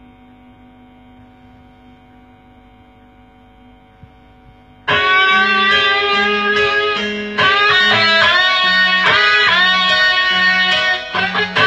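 Instrumental intro of a rock song's backing track. A soft sustained chord holds for about five seconds, then the full band comes in loudly, with an electric guitar lead bending notes over a pulsing bass line.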